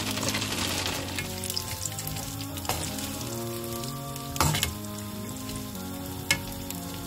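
Chips sizzling in hot oil in a frying pan, the hiss strongest just after they are tipped in, while a spatula stirs them. A few sharp knocks of the spatula against the pan, the loudest about halfway through.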